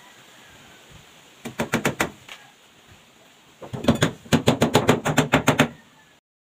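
Hammer driving nails into wooden formwork. A quick run of about six blows comes first, then after a pause a longer run of about a dozen rapid blows, roughly five or six a second.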